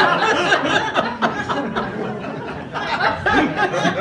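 An audience laughing and chuckling, with many voices overlapping.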